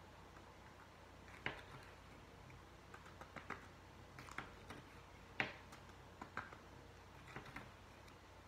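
Faint, irregular crinkles and clicks of a clear plastic zip bag being handled as paint is worked into it, the loudest about a second and a half and five and a half seconds in.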